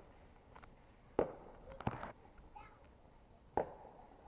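Fireworks going off: sharp bangs about a second in, a pair near the middle, and another near the end.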